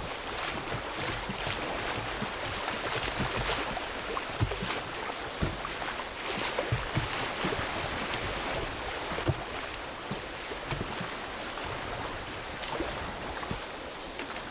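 Whitewater rushing around a kayak running a rapid, with waves splashing and slapping over its bow again and again.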